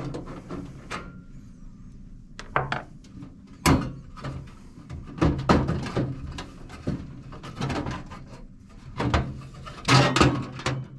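Sheet-metal electrical box cover of a range hood being unscrewed and worked free of its tabs: irregular clicks, knocks and scrapes of thin steel, the loudest knocks about five and a half seconds in and near the end.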